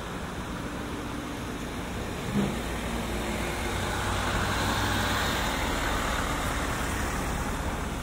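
Steady outdoor traffic noise with a low hum underneath; a passing vehicle swells up from about halfway through and fades near the end. A brief knock sounds about two seconds in.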